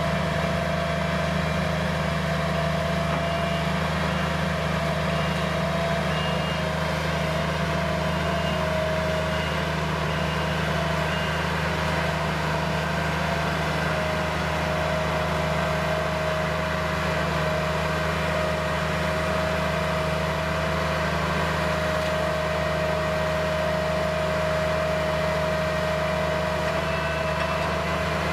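New Holland skid-steer's engine running steadily at an even speed, with a steady whine over the low engine note that dips slightly in pitch partway through.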